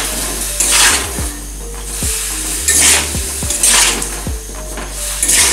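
Metal spatula scraping and knocking against an aluminium kadai while stirring sliced ash gourd, about one stroke a second.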